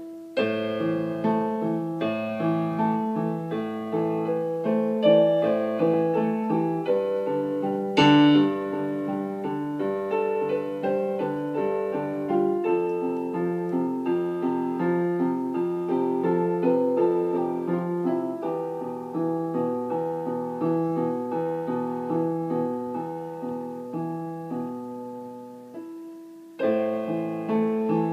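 Piano music: chords played in a steady repeating pattern, with a sharp accent about eight seconds in. The playing dies away shortly before the end, then starts again loudly.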